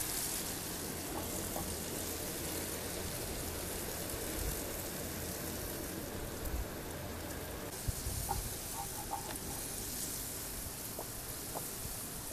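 Chopped tomatoes sizzling in a frying pan on a portable gas camping stove: a steady, even crackling hiss, with a few light knife taps on a wooden board.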